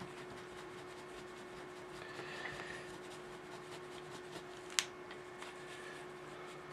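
Faint rubbing and handling of a small painted model shield by gloved fingers, under a steady hum. A single sharp click about five seconds in.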